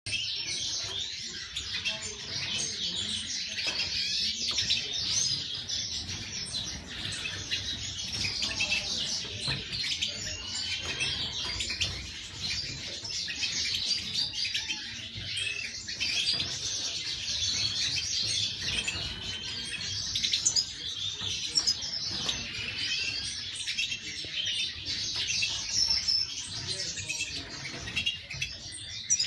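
A flock of European goldfinches chirping and twittering together, a continuous chatter of many short, high, overlapping notes.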